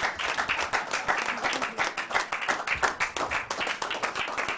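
A small crowd applauding: many hands clapping steadily together, with a few voices mixed in.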